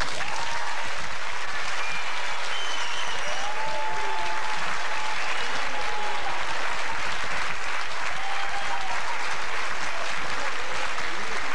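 Audience applauding and cheering, with voices calling out in rising and falling shouts over the clapping.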